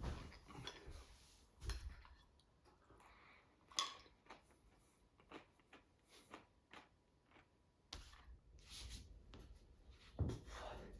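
Faint scattered clicks and small handling knocks, with a sharper knock about four seconds in and a low rumble and louder rustle in the last few seconds.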